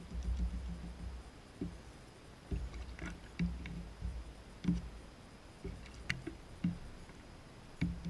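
Young gull drinking from a plastic bowl of water: irregular sloshing and splashing as it dips its beak in, with a few sharp taps of beak on the plastic, the sharpest about six seconds in.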